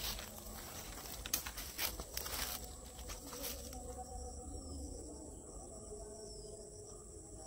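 Insects trilling steadily at a high pitch, with a few short rustles and knocks in the first few seconds.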